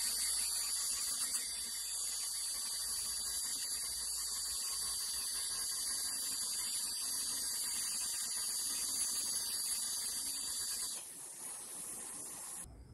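Bench grinder's wire brush wheel spinning against a small metal rod held in a cordless drill: a steady hiss of wire on metal over the motor's hum, with a thin high whine. It eases off about eleven seconds in and cuts off near the end.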